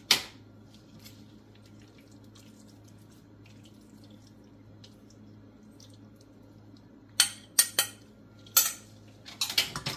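Metal spoon clinking against a stainless steel pan and a serving bowl while peppers and onions are scraped into the pan: one clink at the start, then a quiet stretch under a low steady hum, then a quick run of sharp clinks and scrapes in the last three seconds.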